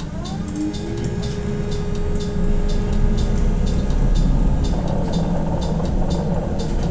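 BKM 321 trolleybus heard from inside while under way. The electric traction drive's whine rises in pitch in the first second or so, then holds steady over a low rumble of the running bus.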